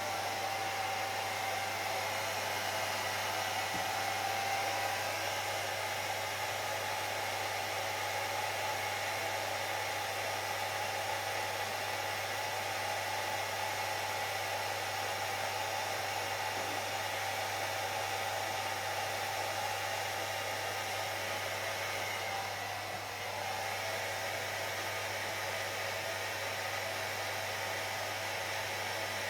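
Hair dryer blowing steadily, a constant airy rush with a faint motor whine, dipping briefly about three-quarters of the way through.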